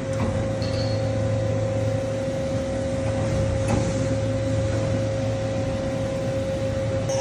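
SNK RB-200F CNC gantry machining center running under power: a steady hum with a constant high whine over it.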